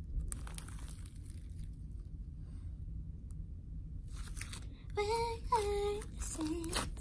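Glittery mermaid slime being squished and worked by hand close to the microphone, giving clicky crackles and pops, with a few short hummed voice sounds about five seconds in.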